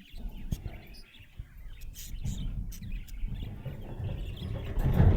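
Budgerigar chirping and twittering in short, rapid calls, over a low rumbling noise that swells near the end.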